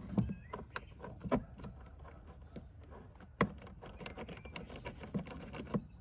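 Hand screwdriver turning a long screw through a caravan door panel into its plastic housing: irregular small clicks and creaks, with one sharper knock about three and a half seconds in.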